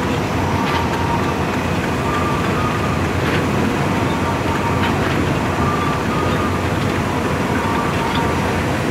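Loaded open steel freight wagons rolling slowly along the rails with a steady rumble and a faint click every second or two. A short high two-note tone repeats about every one and a half seconds.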